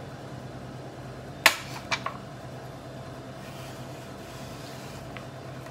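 Plastic mandoline slicer being readjusted and set to the granite counter for a thinner cut: one sharp click about a second and a half in, then two lighter clicks, over a steady hum.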